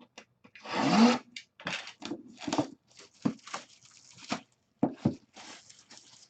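Plastic wrapping torn and crinkled by hand as a trading-card box is opened: one loud rip about a second in, then a run of short crackles.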